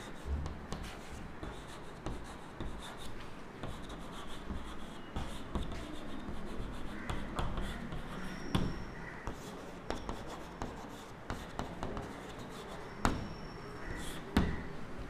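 Chalk writing on a chalkboard: short scratching strokes and light taps as letters are formed, with a few sharper taps in the second half.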